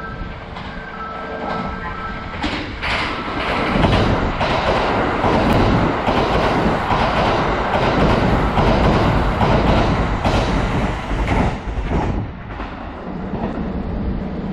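Kintetsu 80000 series Hinotori limited express passing through the station at speed: a loud rush of train noise with rapid clatter of wheels over rail joints, building about two and a half seconds in and easing off after about twelve seconds. Before it arrives, a repeating two-note electronic warning tone sounds.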